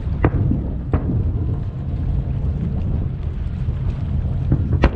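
Aerial firework shells bursting across the water. There is a sharp bang about a quarter second in and another about a second in, and the loudest pair comes near the end, all over a steady low rumble.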